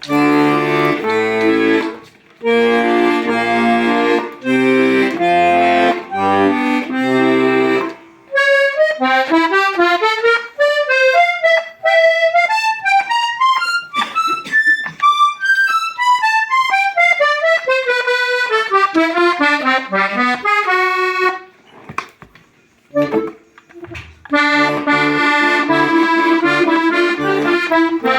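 Hohner Corso diatonic button accordion in C/F being played as a sound test. It starts with pumped chords over bass notes, then plays a single-note scale run up to the top and back down. After a short pause the chords with bass come back near the end.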